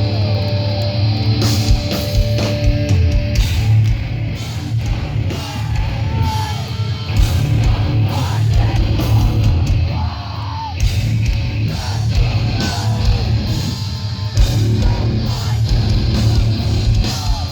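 Live metalcore band playing: distorted electric guitars, heavy bass and pounding drums, with yelled, screamed vocals over the top.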